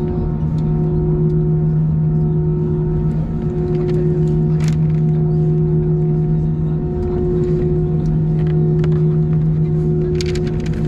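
Steady cabin drone inside an Airbus A319 on the ground: an even rumble with a low hum and a few steady higher tones, plus a few faint clicks near the end.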